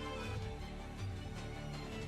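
Background music: a track with held notes and a steady beat.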